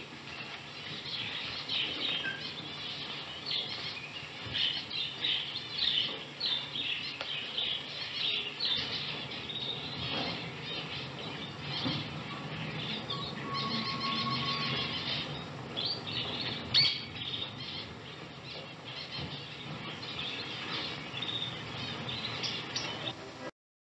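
Many small cage birds chirping and twittering as pet-shop background, with one sharp click about two-thirds of the way through. The sound cuts off abruptly just before the end.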